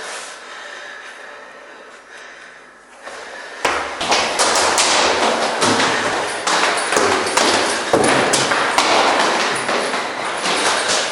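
A fading hiss for about three seconds, then a sudden start about three and a half seconds in of a dense, loud run of knocks and thuds, several a second.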